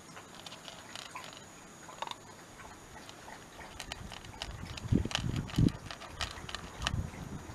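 A Shiba Inu crunching dry kibble from a plastic bowl: a run of small sharp crunches and clicks. A few louder low thumps come about five seconds in.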